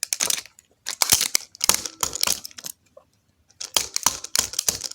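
Rapid, irregular clicking and clattering, like small hard objects being handled, with a pause of about a second a little past the middle.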